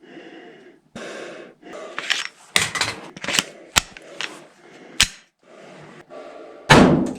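A Glock 17 9 mm pistol firing a string of sharp shots at a folding knife. There are about eight irregularly spaced shots, with the loudest, ringing one near the end.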